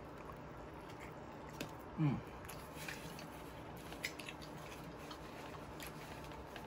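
A person chewing a mouthful of chicken sandwich with the mouth closed: faint, scattered wet mouth clicks and smacks, with one short falling "mm" about two seconds in.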